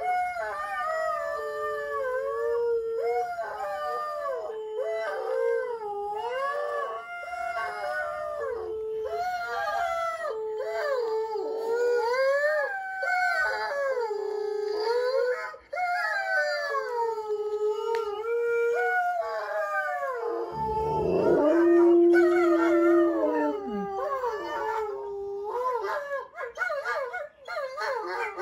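Huskies howling through laptop speakers: long, wavering howls that slide up and down in pitch and overlap one another. About twenty seconds in, a lower, steadier howl comes in and is the loudest part.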